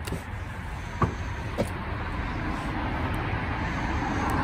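Road traffic going by, a steady rushing noise that swells toward the end as a vehicle passes. Two light clicks about a second and a second and a half in.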